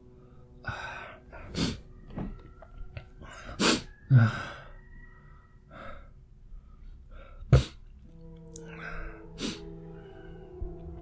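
A sick man's dry coughing, sniffing and sharp breaths in a run of short bursts, the loudest about four seconds in, with a sharp click-like burst about seven and a half seconds in. The dry, painful cough goes with a feverish respiratory illness.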